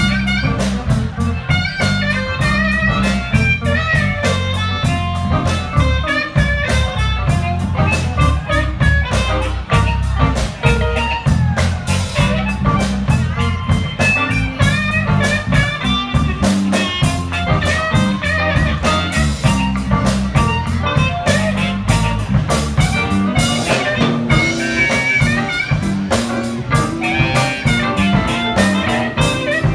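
Live electric blues band playing: a harmonica solo over electric guitar, electric bass and drum kit.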